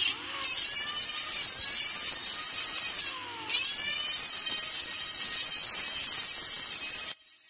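Dental lab micromotor handpiece spinning a bur inside a screw-access hole of a cast metal implant bar, finishing the casting: a loud high-pitched whine whose pitch dips and climbs as the bur bites. It stops briefly twice, just after the start and about three seconds in, then cuts off shortly before the end.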